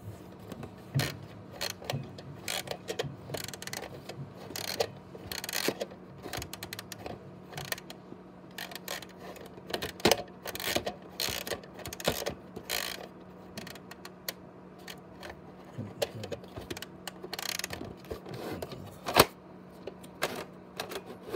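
Plastic gears of a Lionel 100th anniversary alarm train clock clicking and ratcheting while its hands are turned to set the time. The clicks come at an uneven pace over a faint steady hum.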